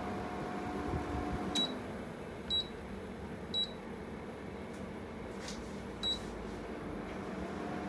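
Corona CWH-A1824R window air conditioner running with a steady hum, giving four short high beeps at uneven spacing, the unit acknowledging button presses.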